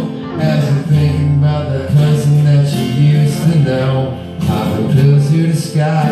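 Two acoustic guitars played live together, strumming chords in a steady rhythm during an instrumental passage of a song.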